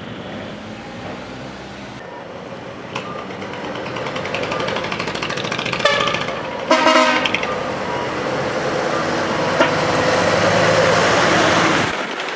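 A decorated truck pulling away, its engine noise swelling louder, with two short horn blasts about six and seven seconds in; the engine noise drops sharply just before the end.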